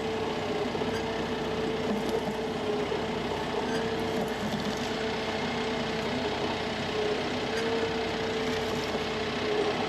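Tractor engine running steadily at constant speed, with a steady hum over it.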